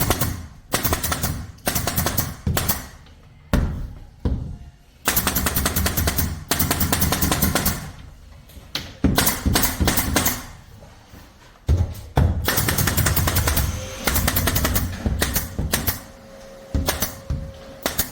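Keyang 422 pneumatic air stapler firing 422 crown staples in quick runs of sharp shots, with short pauses between the runs.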